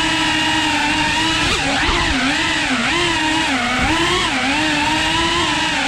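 Tiny whoop FPV drone's motors and propellers whining, the pitch rising and falling constantly as the throttle changes.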